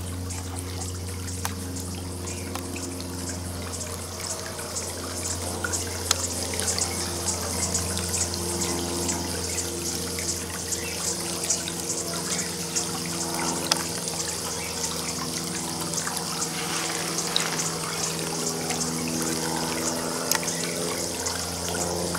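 Water trickling and splashing steadily in an above-ground swimming pool, over a low steady hum, with a few sharp ticks.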